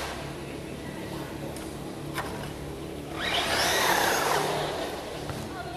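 Thunder Tiger MT4 G3 electric RC monster truck running on the court: a sharp click about two seconds in, then a rush of motor and tyre noise that swells about three seconds in and fades again.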